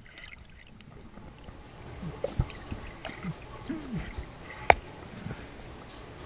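Muffled underwater sound with the microphone below the surface: bubbles and water movement, scattered knocks, and one sharp click about three-quarters of the way through. A few short, low, muffled sounds slide in pitch.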